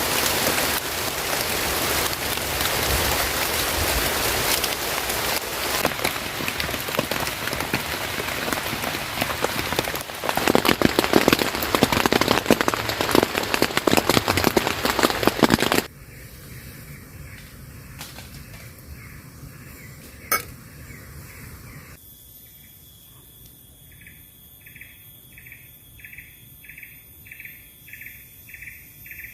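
Heavy rain falling, heavier about ten seconds in, then cut off abruptly for a much quieter scene. In the last several seconds a steady high-pitched whine comes in with a short chirp repeating about twice a second.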